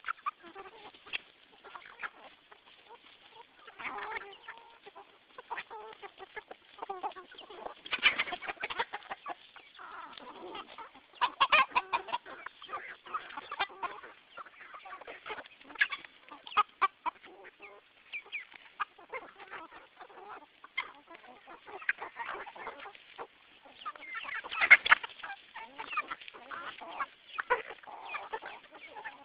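A flock of hens clucking, many short overlapping calls, with louder bursts of calling about 8, 12 and 25 seconds in.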